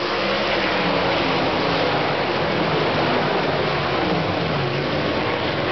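A pack of sprint cars racing past on a dirt oval, their engines running together as one loud, dense wall of noise with pitch wavering as the cars go by.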